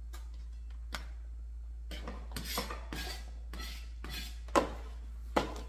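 Kitchen knife on a thin, flexible plastic cutting board: a couple of single chops, then a run of scraping strokes as the blade sweeps cut green onions off the board into a plastic container. Two sharp knocks near the end are the loudest sounds.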